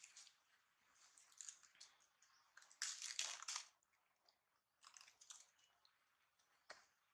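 Faint crunching and rustling of dry fallen leaves in a few short bursts. The loudest burst comes about three seconds in, and a single sharp click follows near the end.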